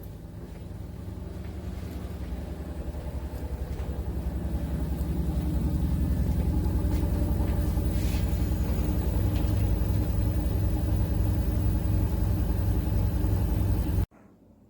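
Front-loading washing machine drum spinning up: a low rhythmic rumble that grows louder over the first several seconds, then holds steady at speed before cutting off abruptly near the end.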